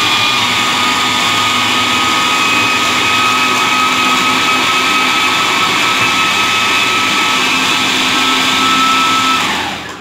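Kenwood food processor's motor running at full speed as its blade chops tomatoes and onion into a coarse pulp, a steady whine that rises slightly in pitch as the load thins. It winds down and stops near the end.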